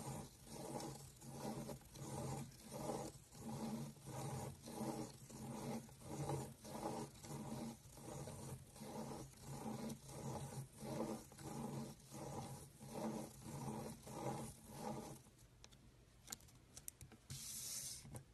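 Pen scratching on paper and a plastic gear wheel rubbing round inside the toothed ring of a spirograph-style drawing tool, in a steady rhythm of about three strokes every two seconds, one for each loop drawn. It stops about fifteen seconds in, and a few light clicks and a brief rustle follow near the end.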